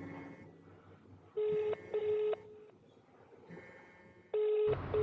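Telephone ringback tone of an outgoing call ringing unanswered: a steady double beep heard twice, about a second and a half in and again near the end, with a pause of about two seconds between the pairs.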